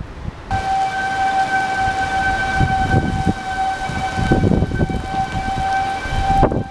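Outdoor tornado warning siren sounding one steady, unwavering tone, starting abruptly about half a second in and dropping out briefly near the end, with gusty wind buffeting the microphone underneath.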